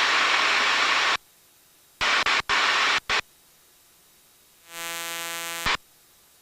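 Cockpit audio through a light aircraft's headset intercom: engine and cabin noise through the open mic cuts off about a second in, followed by three short bursts of noise and then, near the end, a buzzing tone about a second long. Between these the line is near silent.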